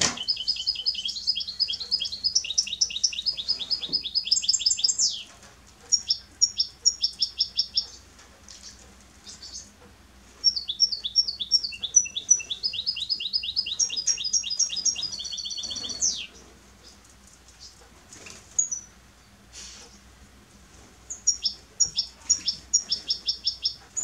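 A caged finch singing: long trills of rapid, evenly repeated high notes, each phrase switching from one note type to another, with pauses of a few seconds between phrases.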